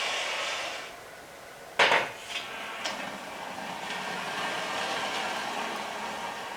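A sharp metallic clank, with a few lighter clinks after it, as metal parts are handled. Before it a steady whooshing noise dies away, and a similar steady noise comes back afterwards.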